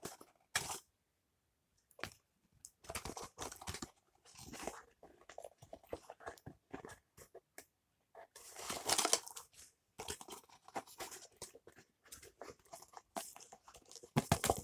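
Toy packaging and small wrappers crinkling and tearing as items are pulled out and unwrapped by hand, in irregular rustles and clicks with busier bursts about nine seconds in and near the end.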